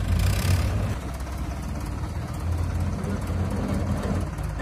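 Tractor diesel engine running while towing a stuck bus by cable, its low hum swelling and easing. A short hiss sounds right at the start.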